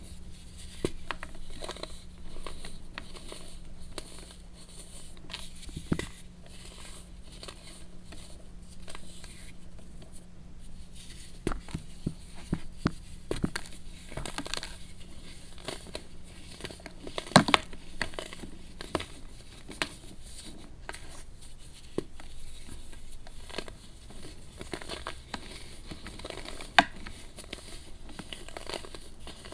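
Compressed baking soda being crushed and crumbled, giving a run of crisp crunches and crackles, with a sharper crack about midway and another near the end.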